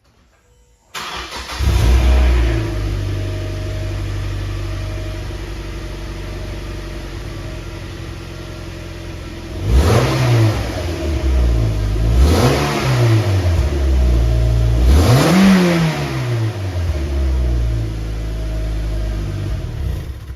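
Mazda MX-5 NC1's four-cylinder engine, breathing through a catless Goodwin Racing header and Yonaka muffler, starting about a second in and settling to a steady idle. It is then revved three times, each rev rising and falling back, before returning to idle.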